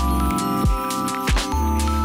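Outro music: held chords over a deep drum beat that hits about every 0.7 seconds.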